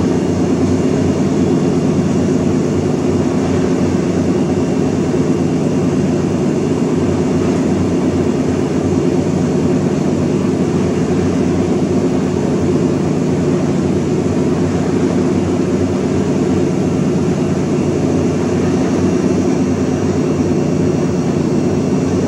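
A steady low mechanical drone with a hum, unchanging throughout.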